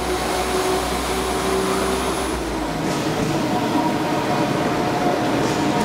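London Midland Class 172 Turbostar diesel multiple unit moving past along the platform, engine and wheel noise running steadily with a low hum; the deepest rumble drops away about three seconds in.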